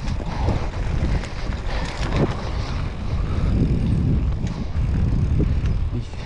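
Heavy wind buffeting an action camera's microphone during a mountain-bike descent: a steady, loud low rumble with gusty noise over it.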